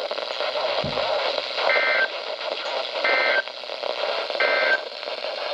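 Weather-radio end-of-message SAME data code: three short two-tone digital chirps about 1.3 s apart over steady receiver static. They mark the end of a severe thunderstorm warning broadcast.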